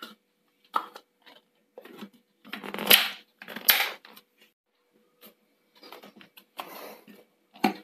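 A mixer-grinder's steel jar and its plastic lid being handled: scattered clicks, knocks and short rustling scrapes, loudest about three seconds in, with another sharp click near the end.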